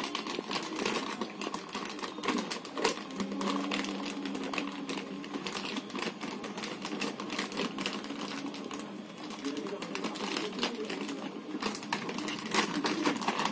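A plastic packet of dog chew sticks being twisted and torn at by hand: continuous crinkling and crackling of plastic made of many rapid small clicks. The packet is hard to open.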